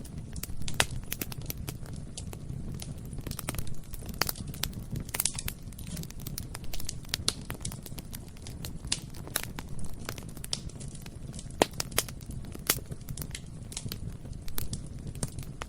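Bonfire burning: a steady low rumble of flame with frequent irregular crackles and sharp pops, a few louder snaps among them.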